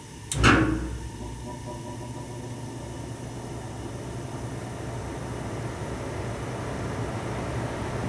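1988 Snyder General gas furnace starting its blower: a sudden loud thump about half a second in, then the blower motor running on low speed with a steady low hum and rushing air, getting gradually louder.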